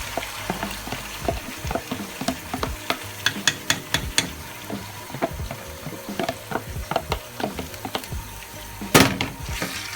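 Chicken and tilapia pieces sizzling in olive oil in a pan, with a utensil clicking and scraping against the pan as they are stirred. A louder clatter comes about nine seconds in.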